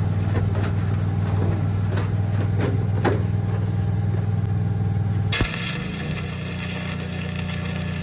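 Engine hum with a few small knocks, then about five seconds in a stick-welding arc strikes and a steady crackling hiss starts while the engine note shifts.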